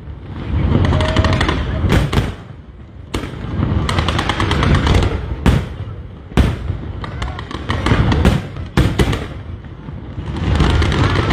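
Aerial fireworks display: loud bangs of shells bursting about once a second, dense rapid crackling between them, and a continuous low rumble.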